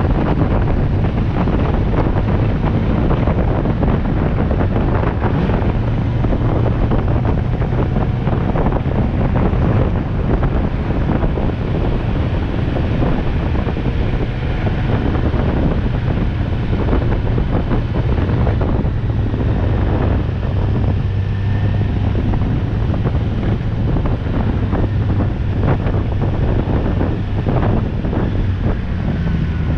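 Strong wind buffeting the microphone in gusts, over a steady low drone.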